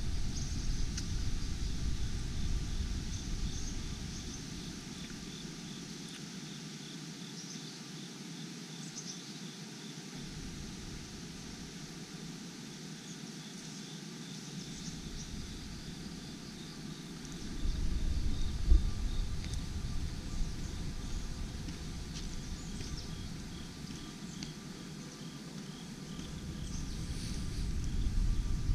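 Outdoor ambience of insects chirping steadily in a high, rapid repeating pattern, over a low rumble on the microphone that fades after a few seconds and comes back about eighteen seconds in.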